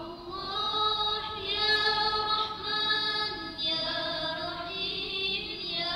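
Female voices singing a slow, melodic chant with long held notes and a brief pause for breath about three and a half seconds in.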